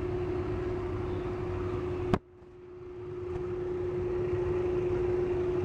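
Steady indoor background hum with one constant tone running through it. About two seconds in there is a sharp click, and the hum drops away at once, then slowly swells back to its former level.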